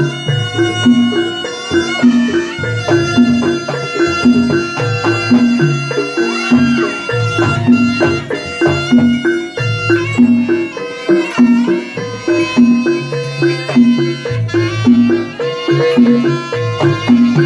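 Live Javanese jaranan music for the Turonggo Samboyo horse dance: a shrill reed melody over gongs and drums in a steady, repeating beat.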